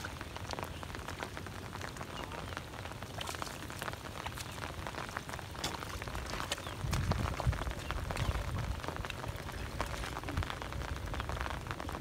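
Rain pattering on shallow muddy water, an even hiss scattered with many small drop ticks. A low rumble swells for a second or two about seven seconds in.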